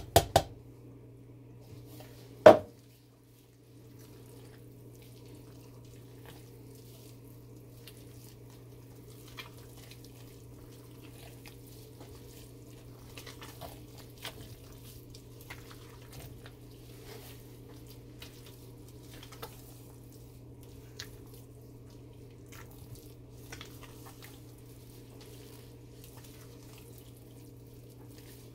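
Silicone spatula stirring thick hot-process soap paste in a stainless steel pot: soft wet squelches and light scrapes and taps against the pot, over a steady hum. Two sharp knocks, the loudest sounds, come at the very start and again about two and a half seconds in.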